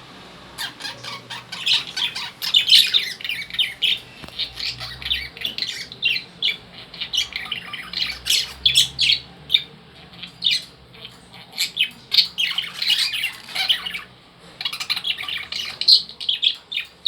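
Caged lovebirds calling in a rapid, shrill run of chirps and squawks, with a short pause about fourteen seconds in.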